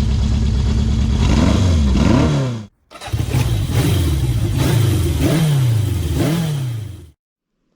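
Honda CB750 Four's air-cooled inline-four engine idling, then blipped over and over, each rev rising and falling quickly, about seven in all. The sound drops out briefly about a third of the way in and cuts off suddenly near the end.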